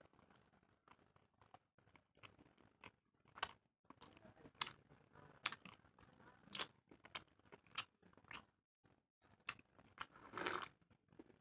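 Close-up chewing and mouth sounds of someone eating steamed chicken momos: irregular short wet smacks and clicks about once a second, with a longer, louder burst about ten seconds in.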